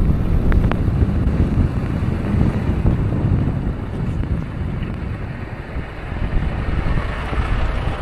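Wind buffeting the microphone over a low, steady rumble of vehicles on a snowbound highway.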